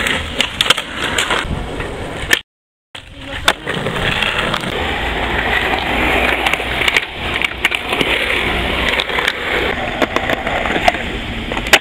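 Skateboard wheels rolling on rough concrete, with sharp clacks of the board popping and landing. The sound cuts out completely for about half a second after two and a half seconds.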